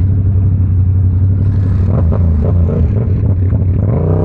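Yamaha R7's parallel-twin engine running steadily while riding, its revs rising and wavering up and down near the end.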